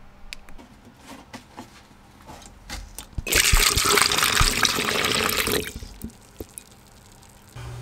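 Rust-removing solution poured from a spout into a plastic tub: a steady splashing pour lasting about two seconds, starting about three seconds in and then stopping. A few light clicks come before the pour.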